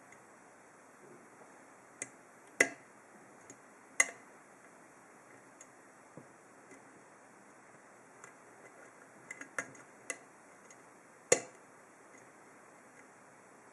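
Irregular small metallic clicks and ticks of a hook pick and tension wrench working the pin stack of an ASSA 7-pin oval cylinder lock. A handful of sharper clicks stand out among fainter ticks.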